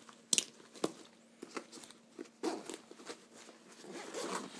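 Hand rummaging inside a nylon camera bag's compartments: fabric rustling and scraping, with two sharp clicks in the first second.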